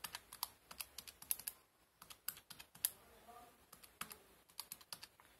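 Buttons of a Casio scientific calculator being pressed in quick succession: a run of light plastic key clicks, with a short pause about two seconds in.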